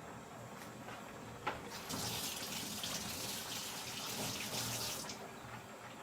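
A click, then water running from a kitchen tap for about three seconds before it is turned off abruptly.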